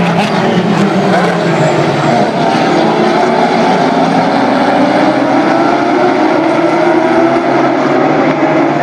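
A pack of GT3 race cars at full throttle, several engine notes overlapping and slowly climbing in pitch as the cars accelerate away from the race start.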